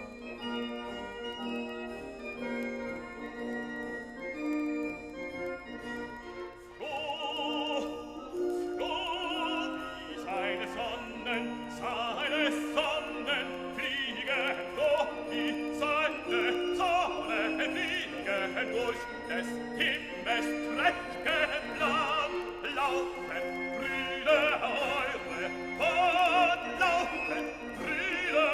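Classical music with operatic singing over an orchestra: held chords at first, then singing with vibrato comes in about seven seconds in and grows louder.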